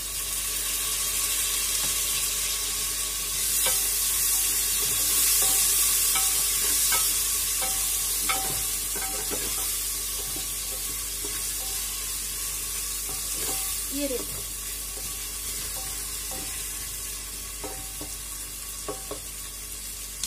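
Chopped tomato frying with sliced onions in an aluminium pressure cooker: a steady sizzle that swells a few seconds in after the wet tomato hits the hot fat. A wooden spatula scrapes and knocks against the pot now and then as the mix is stirred.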